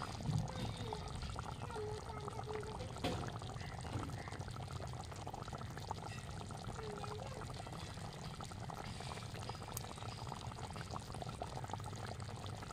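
Thick mustard gravy with hilsa fish simmering in a kadai over a wood fire, bubbling and popping steadily.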